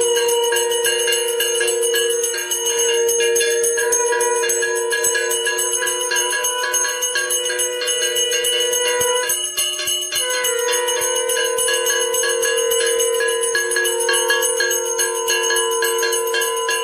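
A hand-held puja bell (ghanta) rung rapidly and continuously for the arati, with a short pause about halfway through.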